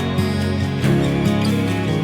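Gentle background music with sustained pitched notes and a plucked, guitar-like tone, changing notes about every half second.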